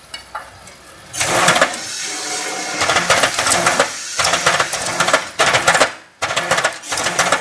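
Bamboo-slicing machine for satay-skewer bamboo running with a rapid clattering rattle. It comes in loud spells after a quieter first second, breaks off briefly about six seconds in, then starts again.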